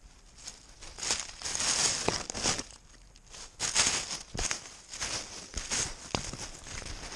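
Irregular rustling and scratching right at a camera worn on a cat as it moves, a run of rough scrapes starting about a second in with a few dull knocks among them.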